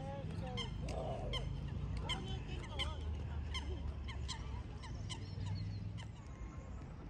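Waterfowl calling: a run of short calls repeated about twice a second, over a low steady rumble.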